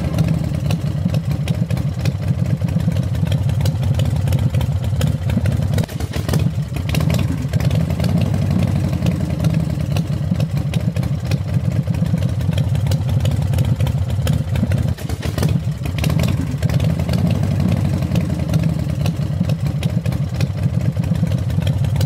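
Motorbike engine sound effect from a roller coaster's on-board audio, idling steadily and low in pitch, with brief dips about six and fifteen seconds in.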